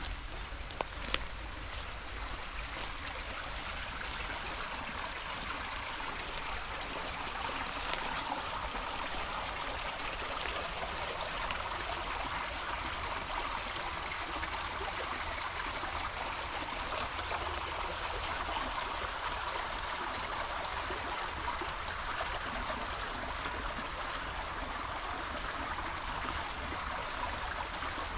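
A small forest stream running with a steady rush and trickle, with a few short, high bird chirps, some falling in pitch, over it.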